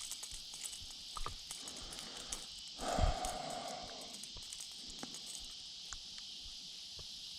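Steady evening chorus of crickets and insects, with a brief louder thump and rustle about three seconds in.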